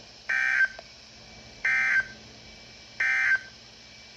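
Emergency Alert System end-of-message signal: three short, buzzy SAME data bursts about 1.3 seconds apart, marking the end of the warning broadcast.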